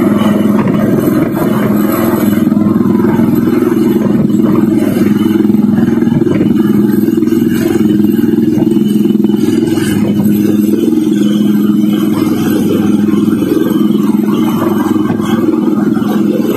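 Military helicopter hovering overhead, its rotor and turbine making a loud, steady drone.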